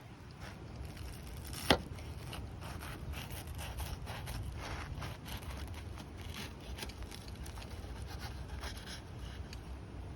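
Light clicks and scraping from food and utensils being handled, with one sharp click nearly two seconds in, over a steady low rumble.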